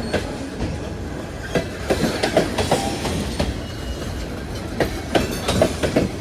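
Freight cars of a Union Pacific manifest train rolling past, their wheels clicking and knocking on the rails over a steady rumble.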